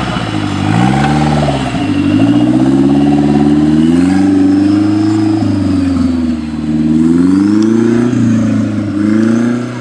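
Off-road buggy's engine revving as it drives off over a dirt track, its pitch climbing and dropping again several times as the throttle is worked and the buggy shifts up.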